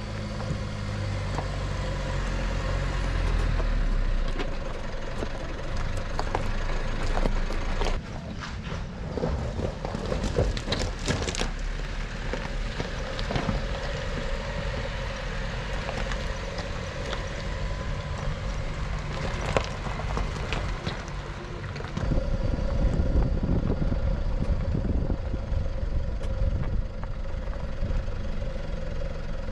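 Mitsubishi L200 pickup driving off-road, its engine running steadily under a low rumble, with scattered knocks and clatter. It gets louder about three quarters of the way through.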